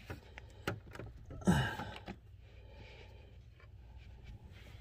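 A few light clicks and taps of steering column parts being handled, with a brief vocal sound falling in pitch about a second and a half in.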